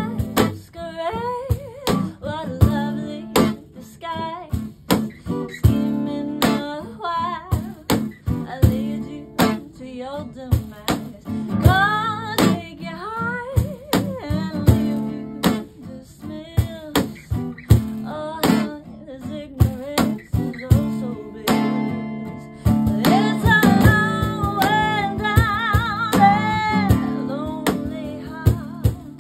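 Live acoustic band: an acoustic guitar strummed over a steady cajon beat, with a woman singing with wide vibrato, fullest in the last third.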